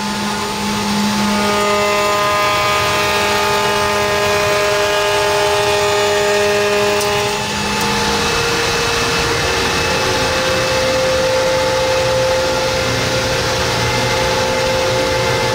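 CNC router spindle running while it mills out a black acrylic panel: a steady machine whine that shifts to a different pitch about seven and a half seconds in.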